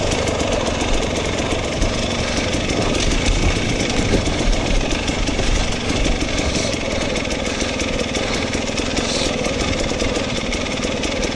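Enduro motorcycle engine running at low revs while the bike goes down a steep, rough forest descent, heard from the rider's onboard camera, with the clatter of the bike over the rough ground.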